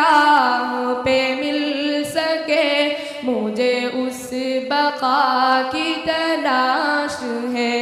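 Devotional Islamic vocal singing with no clear words: a gliding, ornamented melody over a low held note.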